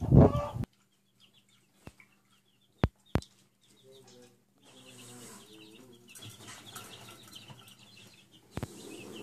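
Young chicks peeping softly, short high cheeps repeating in the middle of the clip, with two sharp clicks about three seconds in. In the first half-second, louder clucking of grown hens carries over, then cuts off.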